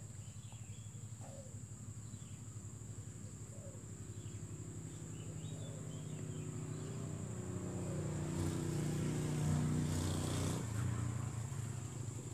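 A steady high-pitched insect drone, with the low hum of an engine building up from about six seconds in and cutting off sharply just after ten seconds.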